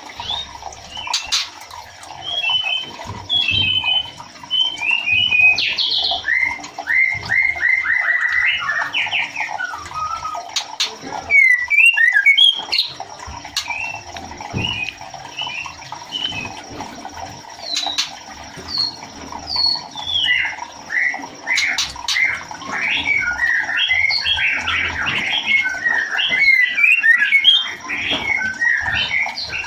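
Female white-rumped shama calling to a male: a string of varied whistled and chattering notes, with a quick rattle of repeated notes about seven to nine seconds in and a dense run of notes in the last third.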